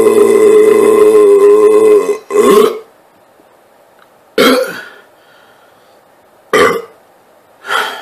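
A man's very long, loud belch held at a steady pitch, ending about two seconds in. After it come several short, loud bursts a second or two apart.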